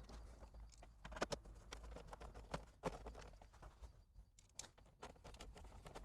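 Faint scattered clicks and light knocks of hand work on a car door speaker mounting, over a low steady hum.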